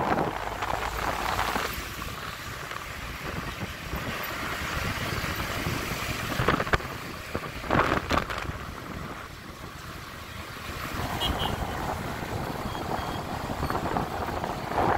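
Wind buffeting the microphone over the low rumble of a motorbike ride through town traffic, with a few louder gusts about halfway through.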